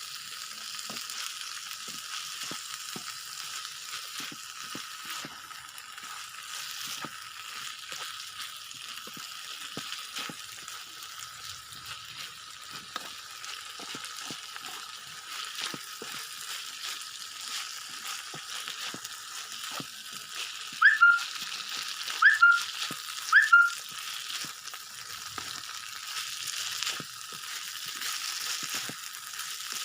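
Fried rice sizzling steadily in a pan, with frequent short taps and scrapes of stirring. About two-thirds of the way through come three loud, short rising chirps, about a second apart.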